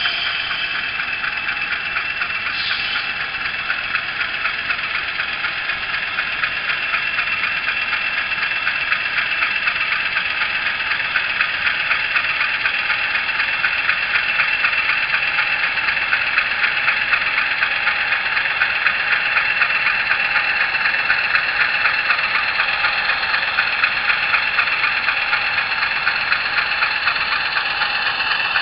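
ESU LokSound decoder's GE U28C diesel prime mover sound played through an HO scale model locomotive's small speaker, running steadily with a pulsing beat and growing somewhat louder several seconds in. The sound is thin, with no deep bass.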